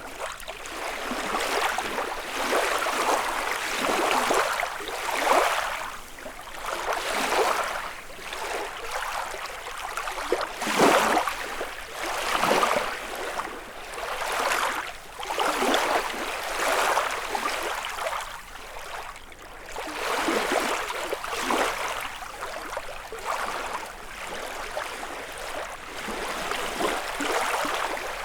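Small lake waves lapping and splashing on the shore, one wash after another every second or two.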